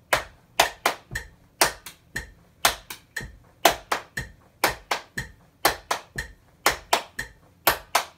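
Hand claps in a steady repeating rhythm, a loud clap about once a second with one or two lighter claps between, clapping out a cymbal part.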